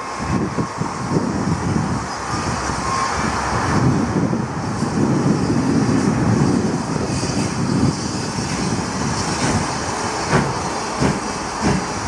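Steam locomotive running with its train as it approaches: a steady working rumble of exhaust and running gear, with a few sharp knocks near the end.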